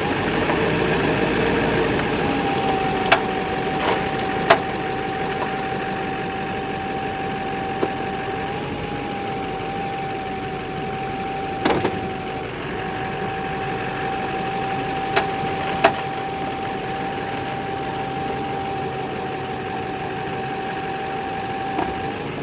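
Chevrolet Silverado 2500's 6.6-litre Duramax V8 turbodiesel idling with a steady high whine, while its front end gives sharp pops every few seconds as the steering is turned. The owner traced the popping to under-torqued engine crossmember bolts.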